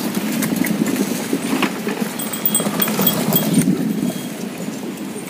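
Horse-drawn cart (cidomo) rolling past close by on a dry dirt track: its wheels rumble and rattle over the ground, with a few knocks, and a small bell rings in short repeated tings. The rumble eases off after about three and a half seconds as the cart moves away.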